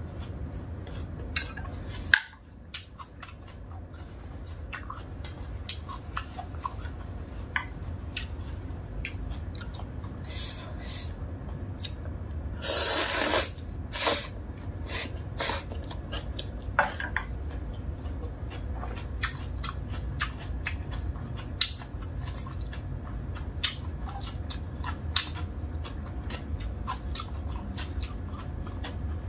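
Close-up eating sounds: chewing of dry instant noodles and fresh greens, with chopsticks and a wooden spoon clicking against the plate. A loud slurp from the spoon comes about halfway through. A steady low hum runs underneath.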